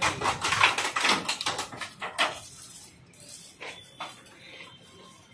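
Rustling and clattering as date palm fronds are pulled and shaken and dates drop into a pickup's cargo bed. It is dense for about the first two seconds, then thins to a few scattered knocks.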